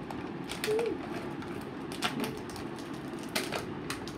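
A few sharp, widely spaced clicks and taps, about four in all, over steady low background noise.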